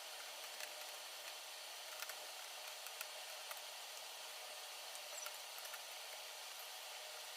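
Scattered light clicks and taps from small parts of a flat-screen TV being handled during disassembly, over a steady hiss.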